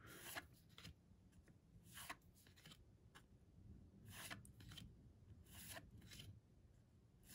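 Faint swishes of cardboard baseball cards being slid one at a time off a small hand-held stack, several short strokes a second or two apart.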